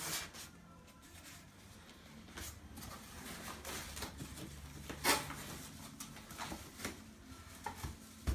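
Polystyrene packing being handled and lifted out of a cardboard TV box: scattered short rubs, squeaks and light knocks, the loudest about five seconds in.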